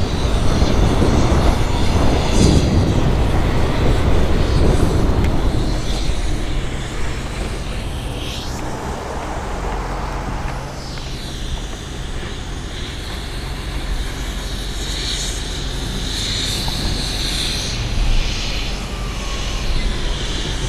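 Road traffic: motor vehicles passing close by, engine and tyre noise with a dense low rumble, loudest in the first six seconds and then a steadier, lower hum.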